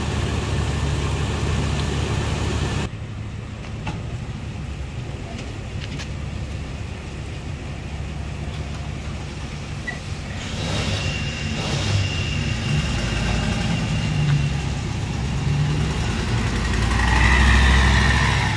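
Gas V8 of a 2004 Ford E350 box truck idling steadily, heard close up at the open engine bay. After a cut it is fainter. About ten seconds in the engine picks up and the truck pulls away, its rumble loudest as it passes near the end.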